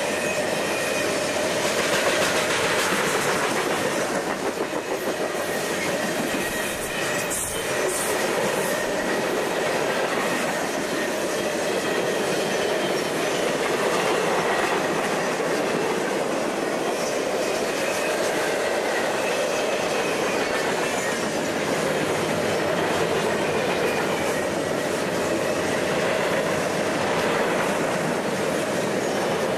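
Cars of a mixed freight train (boxcars and tank cars) rolling past: a loud, steady clatter of steel wheels over the rails, with a faint wheel squeal now and then.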